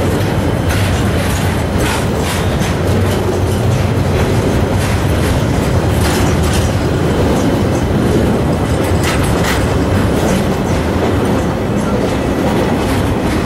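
Train passing close by: a steady rumble and low hum, with wheels clicking over rail joints many times as the cars roll past.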